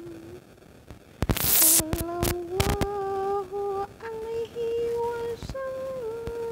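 A woman singing a sholawat, an Islamic devotional chant, in long held notes that climb slowly by small steps, sung close to an earphone-cable microphone. About a second in there is a loud burst of noise followed by a few sharp clicks.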